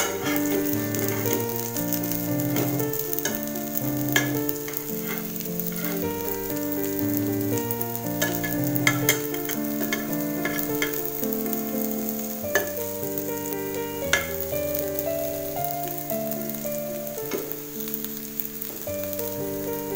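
Cutlets shallow-frying in oil in a nonstick pan, sizzling steadily, with a few sharp clicks from a metal spatula against the pan as they are turned. Slow background music with held notes plays over it and is the louder sound.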